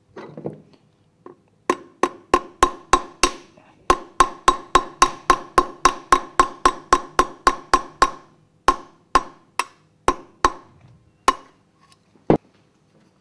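A hammer tapping a punch set in the bearing retainer plate of a Grundfos Unilift KP pump's motor to remove the bearing: about thirty sharp metallic taps, about four a second, each ringing briefly in the steel housing. The taps pause briefly, slow toward the end, and finish with one duller knock.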